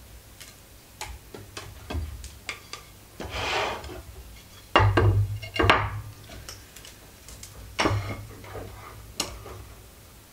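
Wooden sticks and a folding ruler being handled and set down on a wooden tabletop: scattered light clicks and a few knocks, the loudest pair about five to six seconds in, with a short rustle just before them.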